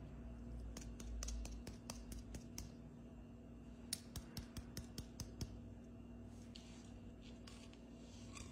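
Light, sharp clicks from plastic-gloved fingers handling and tapping a crisp sesame cookie, in two quick runs of about eight each, over a faint steady hum.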